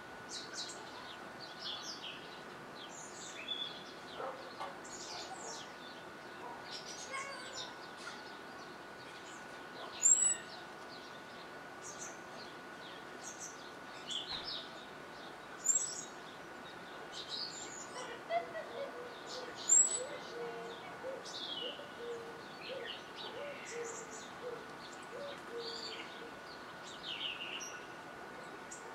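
Small songbirds chirping and twittering in the background, with three loud, sharp high chirps about ten, sixteen and twenty seconds in. A faint steady tone runs underneath.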